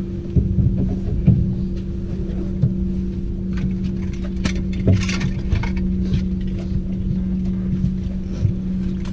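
Steady mechanical hum of boat machinery at two steady pitches over a low rumble, with scattered light clicks and knocks of fishing tackle being handled.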